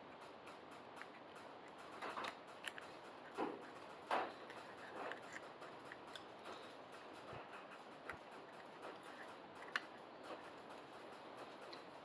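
Faint, scattered clicks and knocks of small parts and hand tools being handled, with a few louder knocks about two to four seconds in and a sharp click near the end.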